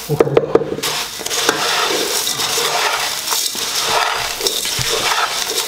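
Wooden spatula stirring dry puffed rice, crushed noodles and chopped vegetables in a metal pot: a continuous crunchy rustle and scrape, with a few sharp knocks against the pot in the first second.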